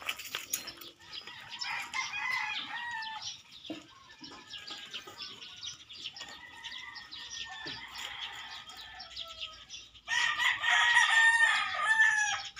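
Rooster crowing: a crow about two seconds in, fainter falling calls midway, and a long, loud crow over the last two and a half seconds.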